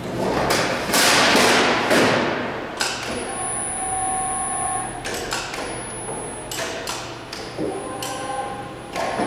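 A large sheet of 24-gauge steel flexing with a loud rushing wobble as it is lowered, then knocking and clanking in a series of sharp taps as it is slid into place on the folder's bed. Brief steady ringing tones sound in between.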